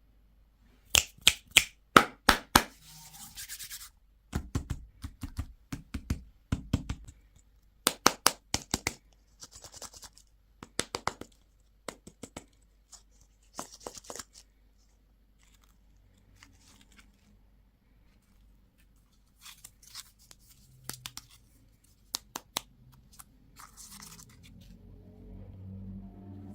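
Hands handling and opening plastic candy and toy packaging: groups of sharp clicks and taps, with several short bursts of crinkling wrapper.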